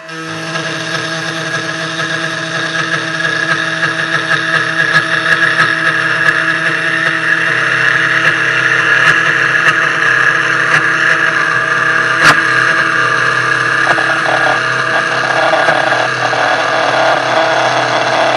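Spindle of a CNC 1610 Pro desktop router cutting with a 3 mm end mill in 0.4 mm-deep passes: a loud, steady, high cutting whine over the motor's hum. It comes in abruptly as the cutter engages, with a single sharp click about two-thirds through, and falls back to the plain motor whine just before the end.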